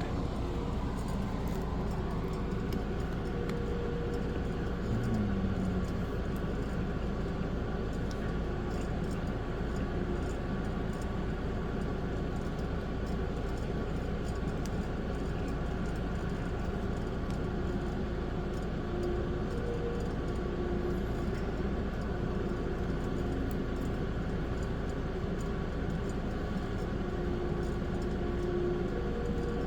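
Steady background hum and hiss at an even level, with a few faint short tones drifting in and out.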